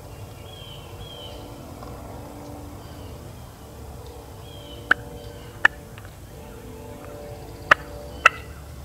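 Four short, sharp turkey clucks in two pairs, the first pair about five seconds in and the second near the end, over faint songbird chirps.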